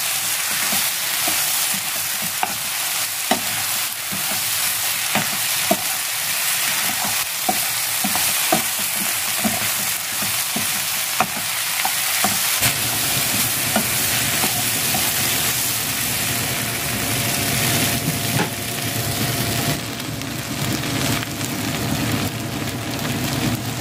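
Diced ham, cabbage and onion sizzling in a frying pan as they are stir-fried, with a spatula clicking and scraping against the pan. About halfway through, a steady low hum with a few steady tones comes in beneath the sizzle.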